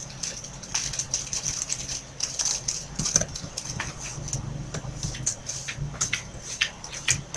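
Computer keyboard keys clicking irregularly as a line of code is typed, over a steady low hum.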